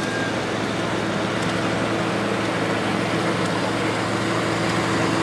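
Allis-Chalmers Model G's small four-cylinder engine running steadily as the tractor drives slowly, growing slightly louder in the second half.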